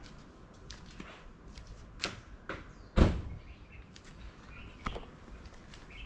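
A few scattered clicks and light knocks, with one louder thump about halfway through.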